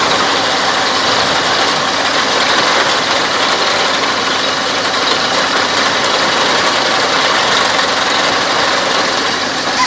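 Water-well drilling rig's engine running steadily, with muddy flushing water splashing out around the well casing.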